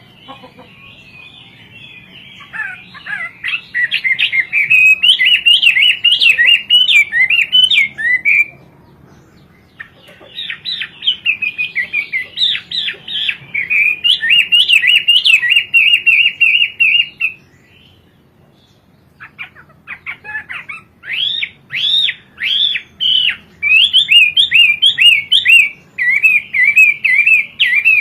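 Chinese hwamei singing in three long bouts of fast, varied whistled phrases, with short pauses between the bouts.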